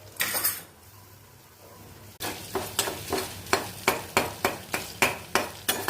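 Spoon stirring ginger, black pepper, cloves and mishri frying in ghee in a kadhai: one short scrape just after the start, then from about two seconds in a regular run of scrapes against the pan, about three a second, over a faint sizzle.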